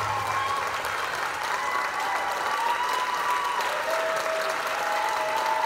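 Audience applauding at the end of a dance number, a dense steady clapping, with long drawn-out whoops and cheers from the crowd over it.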